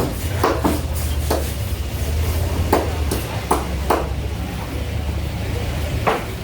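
Irregular sharp knocks of a knife chopping through fish on a cutting block, about nine strikes at uneven intervals, over a steady low hum.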